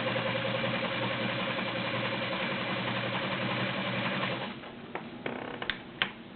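Kenmore Model 84 sewing machine with a 1.2 amp motor, running steadily as it sews a zigzag stitch, then stopping about four seconds in. A few sharp clicks follow near the end.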